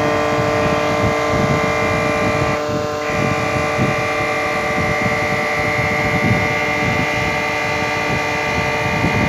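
CNC milling machine cutting a steel mold core with a small end mill under flood coolant: a steady whine with several tones over a rough cutting noise. Some of the higher tones drop out briefly about two and a half seconds in.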